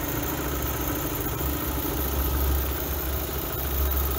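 Opel Zafira 1.8 four-cylinder petrol engine idling steadily. It runs smoothly, with no audible misfire.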